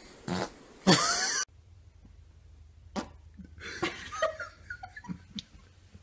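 Fart sounds: a short one, then a longer, louder one with a wavering pitch about a second in that cuts off abruptly. Quieter scattered clicks follow.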